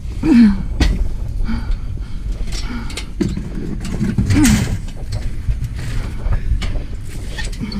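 Scrap being shoved and fitted into a vehicle: repeated knocks, clunks and scrapes of hard objects, over a steady low rumble. Two short pitched sounds stand out, one about half a second in and one at about four and a half seconds.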